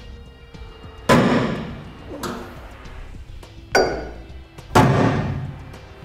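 Center punch striking the steel underside of a pickup bed through the bracket holes to mark drilling points: four sharp metallic impacts, roughly a second apart, each ringing briefly.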